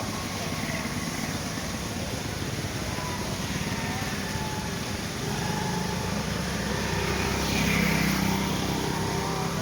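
Steady rushing of water from a switched-on decorative waterfall. A low hum joins in about five seconds in and grows louder near the end.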